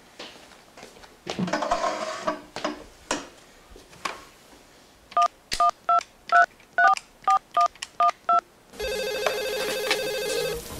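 Office IP desk phone: a brief clatter as the handset is lifted, then about a dozen two-tone keypad beeps as a number is dialed. Near the end a steady electronic phone ring starts and carries on.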